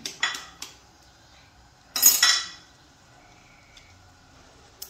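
Light metallic taps of kitchen utensils, about two a second, each with a short ring, then one louder clatter of metal kitchenware about two seconds in.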